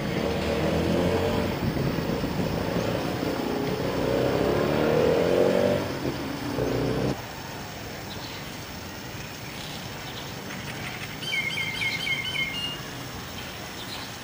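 A motor vehicle's engine passing, its pitch rising, then cutting off suddenly about seven seconds in. Later a bird gives a quick series of about six high chirps.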